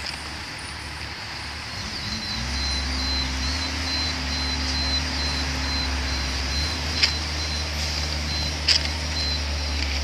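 Engine of a road-rail work vehicle with a Manitou aerial boom running, picking up speed about two seconds in as the hydraulic boom raises the work basket. A thin high tone sounds on and off over the engine, and two sharp metallic clicks come near the end.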